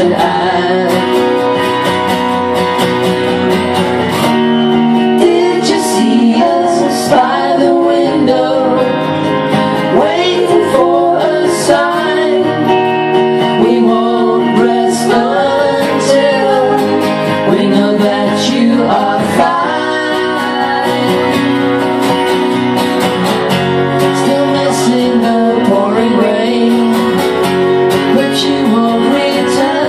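Live folk-rock band performance: strummed acoustic guitars and an electric guitar, with a sung lead vocal.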